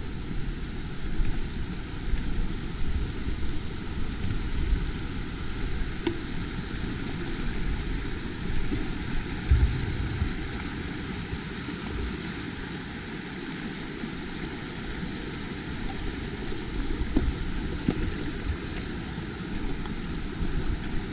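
Mountain bike rolling down a rough track: a steady rough rolling noise with uneven low rumble and a few knocks from the bike over the bumps.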